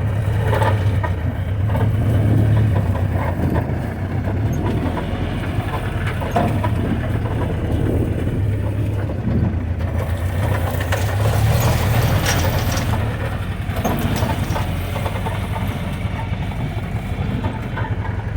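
Old Jeep's engine running steadily at low speed as it crawls over rough ground, with scattered knocks and scrapes from the rough ground and brush.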